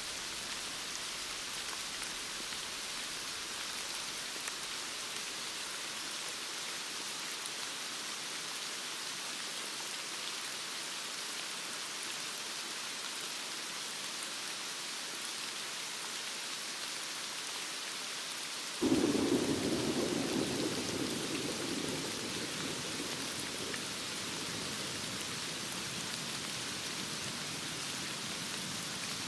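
Steady heavy rain. About two-thirds of the way through, a rumble of thunder starts suddenly, louder than the rain, and fades away over several seconds.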